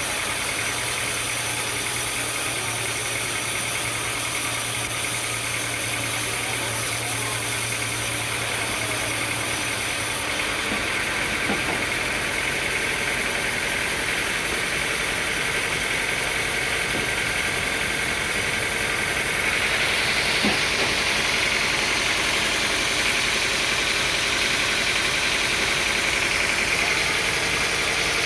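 Sawmill machinery running steadily, engine-driven. About two-thirds of the way in, a louder, higher-pitched whine joins and holds.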